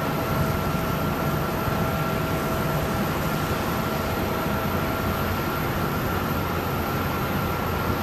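Steady machinery running during aircraft de-icing: a low rumble with a constant high whine, and a lower steady tone that drops out about five seconds in.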